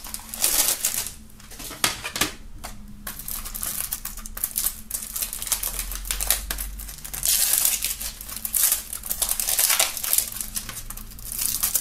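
Cellophane shrink-wrap crinkling and crackling as it is peeled off a plastic CD jewel case, with small clicks from handling the case. The crinkling is loudest about seven and again about ten seconds in.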